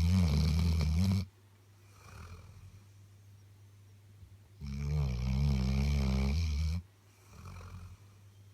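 Labrador snoring in its sleep: two loud, rattling snores about four seconds apart, each around two seconds long, each followed by a softer, shorter breath.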